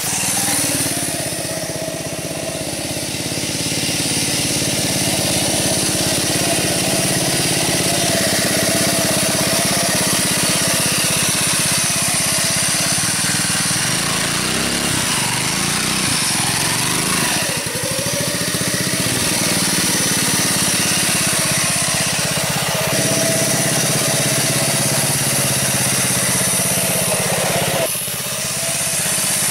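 Homemade mini motorcycle's Predator four-stroke small engine running under way, its speed rising and falling a few times, with the open drive chain between the engine and the dirt bike gearbox clattering very loudly over the engine note.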